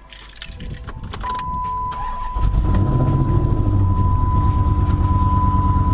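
A Dodge Charger's 5.7-litre Hemi V8 starting about two seconds in and settling into a steady idle, with a steady high warning chime tone sounding from about a second in.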